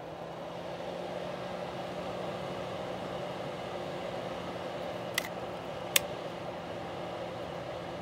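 Andily ceramic space heater's fan running with a steady whir and low hum, just switched on and reaching full speed in the first second. Two sharp clicks about five and six seconds in.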